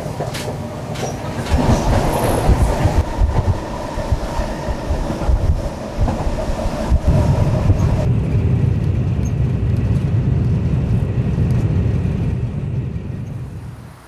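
Passenger train running, heard from inside the carriage: a steady low rumble with sharp clicks from the wheels in the first few seconds, fading out near the end.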